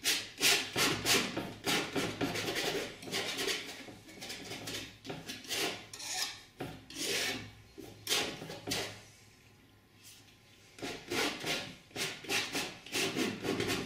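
Metal painting knife scraping and dabbing oil paint onto a stretched cotton canvas in short, quick strokes, several a second, with a pause of about two seconds about two-thirds of the way through.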